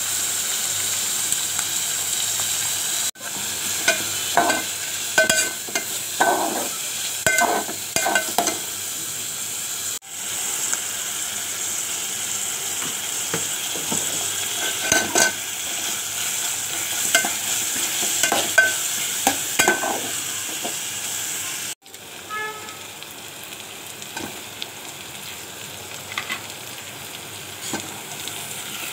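Chopped onions sizzling in hot oil in a metal pot, with a metal spatula scraping and clicking against the pot in bursts as they are stirred. The sizzle drops to a lower level about two-thirds of the way through.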